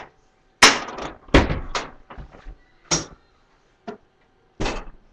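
Sharp knocks and clatters of things being handled and set down on a kitchen counter, about six over five seconds, each one short.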